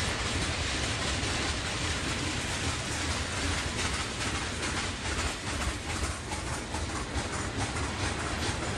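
Freight train tank cars rolling past: a steady rumble of steel wheels on the rails, with a run of quick clicks and clacks through the middle of it.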